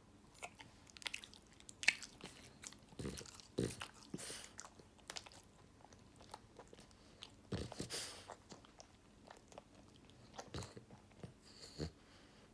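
Sleeping French bulldog making irregular wet clicking and smacking mouth noises, with a few louder noisy bursts.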